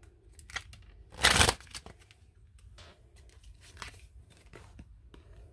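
A deck of oracle cards being shuffled and handled: a brief burst of card rustling about a second in, then light scattered clicks and taps of cards.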